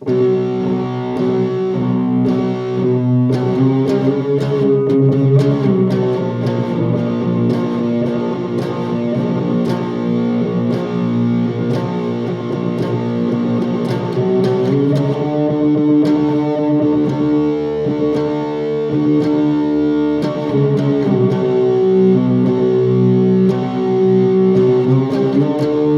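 Guitar playing a short outro: sustained chords that change every few seconds, with picked notes struck over them.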